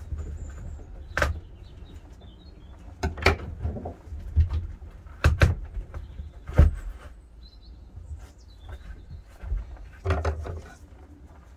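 Hands working at a boat's canvas canopy and its lining: irregular rustles, clicks and knocks, about half a dozen sharp ones, against a steady low wind rumble on the microphone. A few faint bird chirps come through now and then.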